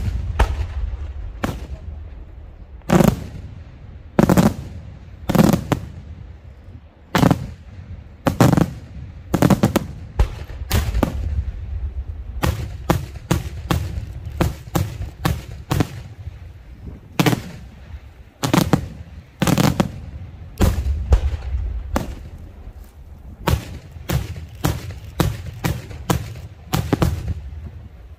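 Daytime aerial fireworks shells bursting overhead in a string of sharp bangs, about one a second at first, then coming quicker and more irregularly from about halfway through. A low rumble carries on between the bangs.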